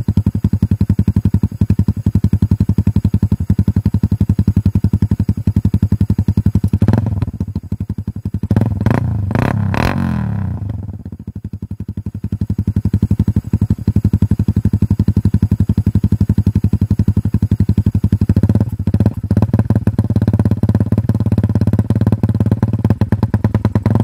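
Suzuki Raider R150 Fi's single-cylinder four-stroke engine running through an SC Project slip-on muffler with its silencer insert removed. It idles with a fast, even pulse, and the throttle is blipped in short revs about a third of the way in and again near the end.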